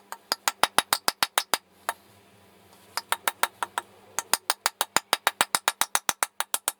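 Rapid, even hammer taps, about five a second, driving the wooden wedge into the top of the axe handle to seat the head. The taps come in runs, with a pause of about a second before the middle.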